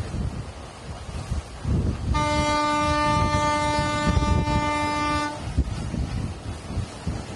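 A boat's horn sounding one long, steady blast of about three seconds, starting about two seconds in and stopping abruptly, over rumbling wind and engine noise.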